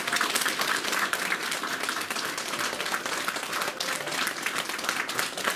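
A small audience applauding, a dense, steady patter of hand-clapping.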